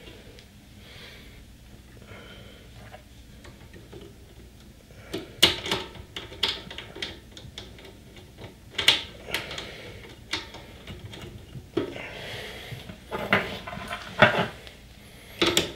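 Irregular sharp metallic clicks and clinks of a nut, washer and cable lug being handled and fitted at a terminal inside an opened inverter welder's metal case, starting about five seconds in.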